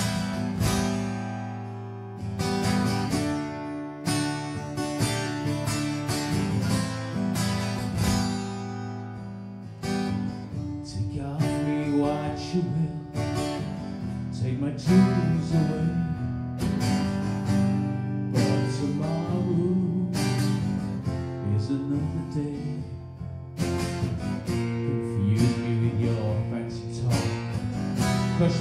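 Acoustic guitar strummed in chords, a song played on solo guitar.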